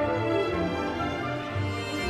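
Classical chamber ensemble of winds and strings accompanying an alto saxophone soloist in a fast movement, with pulsing low bass notes underneath.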